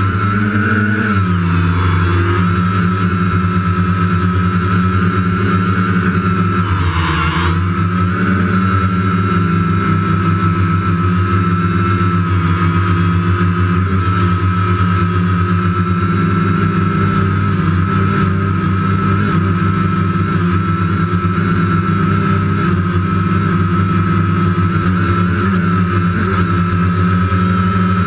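DJI Phantom quadcopter's motors and propellers, heard from the GoPro mounted on it: a loud, steady buzz with a high whine, rising in pitch as it lifts off, then holding steady in flight. About seven seconds in the pitch briefly dips and climbs back.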